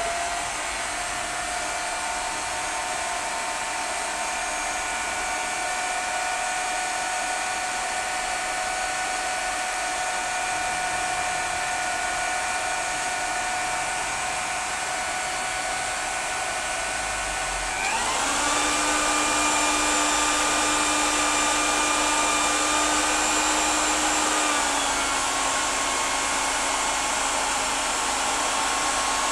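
Electric drill with a mixing paddle stirring whitewash in a bucket: a steady motor whine that steps up to a higher speed about two-thirds of the way through, then eases down slightly.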